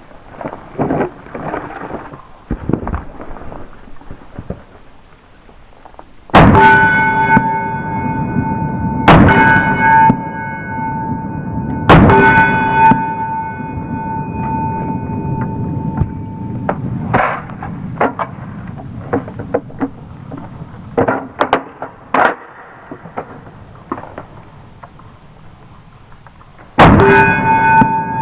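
9 mm SIG P320 pistol shots, four very loud ones spread out, each followed by a ringing tone with several pitches that holds for several seconds. Several quieter sharp cracks come in between.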